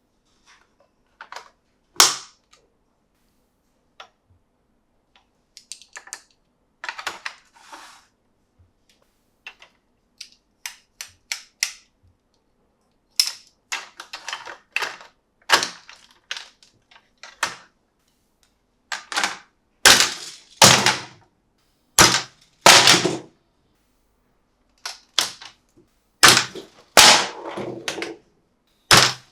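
Hard plastic clicks and knocks from handling a toy monster truck stunt playset, coming at irregular intervals. They are sparse and fainter at first, then louder and closer together in the second half.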